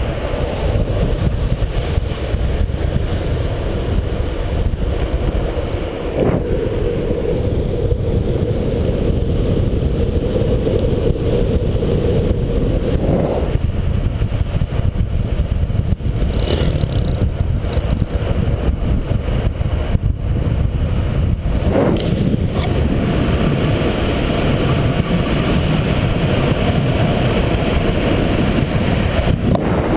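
Steady rush of wind over the camera microphone and longboard wheels rolling on asphalt during a fast downhill run, with a few brief knocks.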